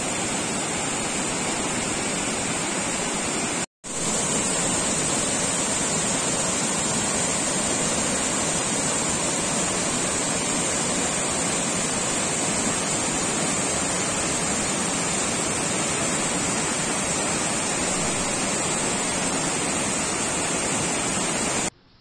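Waterfall and rocky cascade rushing, a dense steady noise of falling water. The sound cuts out briefly about four seconds in and again just before the end.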